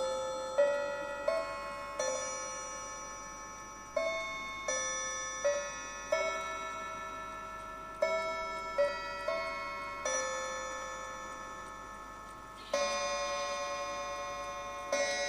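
German table clock striking its five coiled gongs: a chime melody in four-note phrases, each note ringing and fading, then from about 12.7 s in slower, deeper single hour strikes that ring on.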